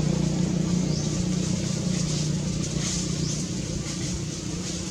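A motor vehicle's engine running with a steady low hum that slowly fades, with a few faint high squeaks over it.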